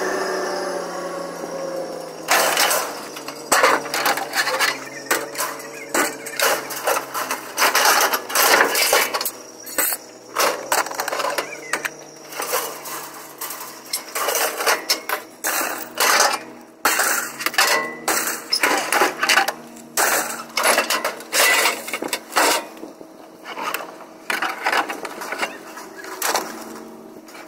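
Scrap metal clanking and clattering as junk (metal chairs, a wire basket, grill parts) is dragged off a trailer and thrown onto a scrap pile: irregular bangs and rattles, often several in quick succession, starting about two seconds in. A faint steady hum runs underneath.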